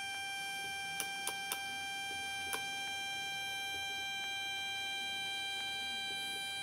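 Model train motor driven by a PWM controller, giving out a steady electric whine of one pitch that imitates a VVVF inverter's drive sound. Three sharp clicks come about a second in and a fourth near two and a half seconds.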